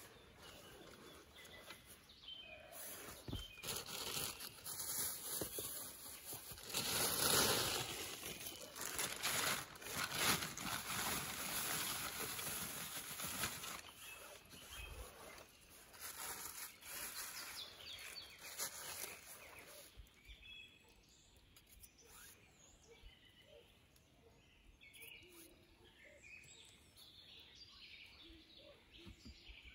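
A man blowing on the fire in a clay hearth in repeated breathy whooshes to fan the embers, loudest in the first half. Birds chirp faintly in the quieter second half.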